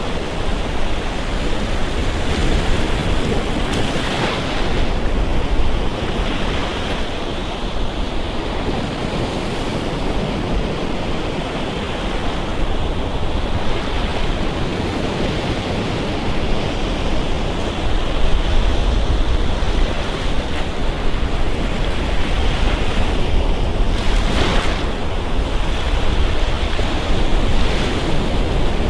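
Surf breaking and washing up on a sandy beach in a continuous rush, with a couple of brighter surges about four seconds in and near the end. A low rumble of wind on the microphone runs underneath.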